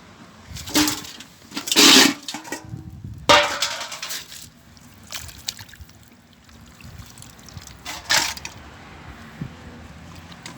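Wet sloshing and splattering as soft boiled chicken heads and their hot broth are tipped out for the dogs, in several separate pours, the loudest about two seconds in.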